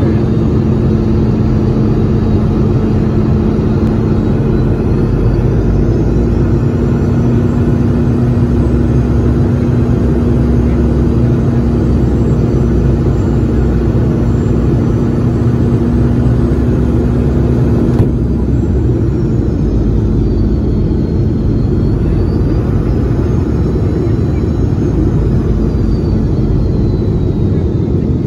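Cabin noise inside a Boeing 717 on its approach: a steady rumble of airflow and the rear-mounted Rolls-Royce BR715 engines, with a faint wavering high whine. About eighteen seconds in there is a short click and a steady low hum drops out.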